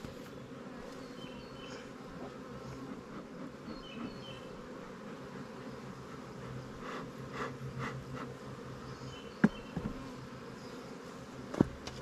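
Honeybees buzzing steadily around an open-air hive, with a couple of sharp knocks near the end.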